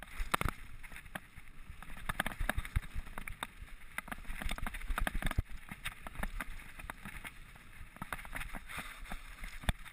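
Mountain bike riding fast down a rough dirt trail: tyres crunching over dirt and loose gravel, with frequent irregular clatters and knocks as the bike jolts over the ground, over a constant low rumble.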